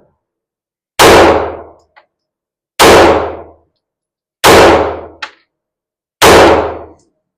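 Four pistol shots from a Beretta PX4 Storm, spaced about 1.7 seconds apart, each ringing briefly. This is the post-reload string of a timed four-shot, reload, four-shot drill. A faint click follows shortly after the third shot.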